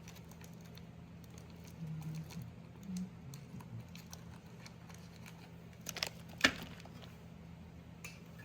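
A few light metallic clicks and taps of engine parts being handled during crankshaft and bearing installation, the sharpest about six and a half seconds in, over a steady low hum.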